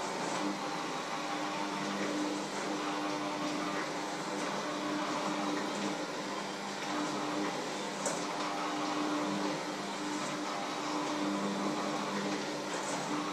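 Electric hand mixer running in a bowl, a steady motor hum whose pitch shifts slightly up and down as the beaters work.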